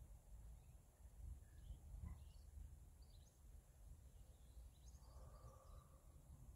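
Near silence: faint outdoor ambience with a low rumble and a few faint, short bird chirps scattered through.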